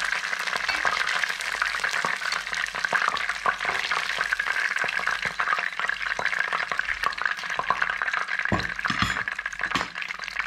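Hot vegetable oil, left from frying starch-coated pollock, sizzling in a pan with a steady hiss and many small crackling pops. A couple of dull thuds come about eight and a half seconds in.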